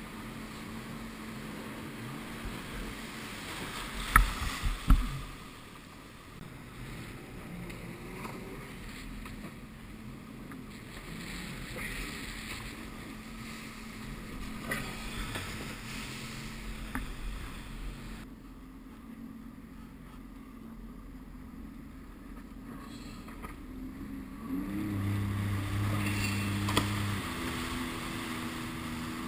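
Sea-Doo RXT 260iS jet ski engine running slowly through surf with water sloshing, and a few sharp knocks about four seconds in. Near the end the engine note steps up and grows louder as the jet ski accelerates.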